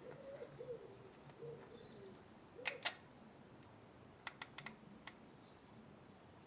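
A pigeon cooing faintly in the first half, then sharp clicks: two close together near the middle and a quick run of about five a little later, from insulated spade connectors and a crimping tool being worked onto the wires.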